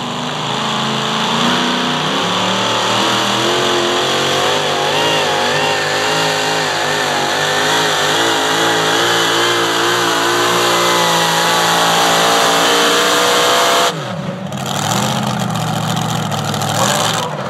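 Pro Modified pulling tractor's supercharged racing engine at full power under load as it drags the sled, its pitch wavering and slowly climbing. About 14 seconds in the power is cut abruptly and the engine drops back to a lower idle as the pull ends.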